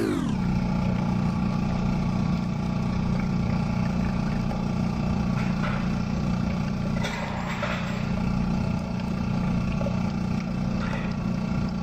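Coffee vending machine running steadily, a loud, even hum as it dispenses brewed coffee into a paper cup.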